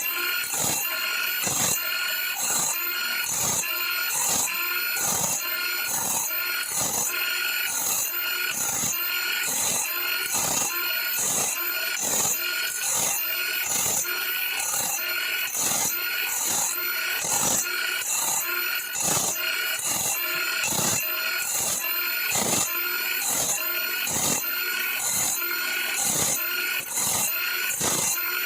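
Drill-driven grinding stone sharpening a bandsaw blade tooth by tooth: a short rasping grind repeats in an even rhythm, about two strokes a second.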